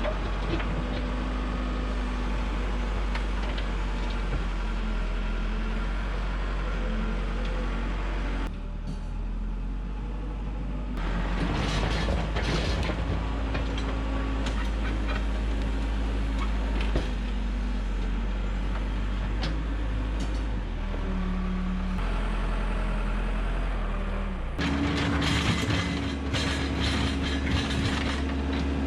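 Backhoe diesel engine running steadily, with spells of clanking and rattling from the machine working the dirt.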